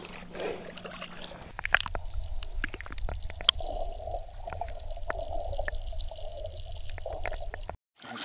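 Water heard through a submerged camera: a muffled low rumble with scattered sharp clicks and ticks, starting about a second and a half in after some open-air shoreline sound. It cuts off abruptly near the end.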